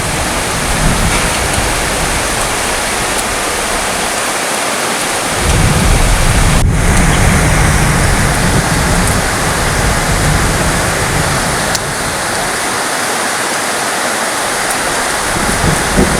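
Heavy rain falling steadily. A low thunder rumble swells about five seconds in and fades out about twelve seconds in, and another begins near the end.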